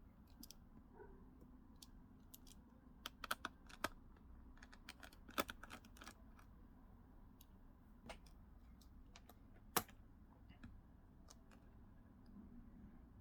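Scattered faint clicks and taps from small plastic and metal parts being handled inside an open laptop as the memory module and the mechanical hard drive are pulled out. The clicks come in short clusters, with one sharper click about ten seconds in.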